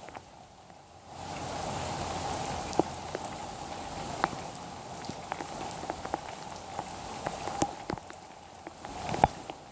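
Steady rain falling, with scattered sharp drips of water landing close by. The rain swells suddenly about a second in and eases again near the end.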